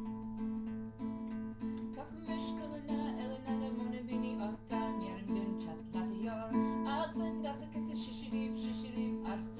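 Acoustic guitar strummed in a steady rhythm; about two seconds in, a woman starts singing along.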